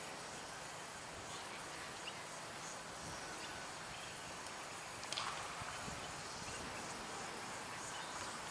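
Steady high-pitched insect chorus that swells and fades gently, over faint open-air background. A single short sharp knock about five seconds in.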